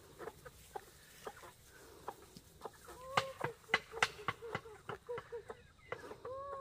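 A flock of chickens clucking as they are fed paddy rice, with many sharp clicks among the calls; the clucking grows busier and louder about halfway through.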